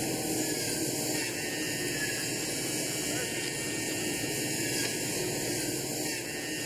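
Steady background hiss with a faint low hum, unchanging throughout.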